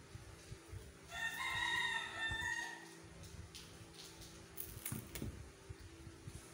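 A rooster crowing once for just under two seconds, about a second in. A few light clicks follow about five seconds in, over a faint steady hum.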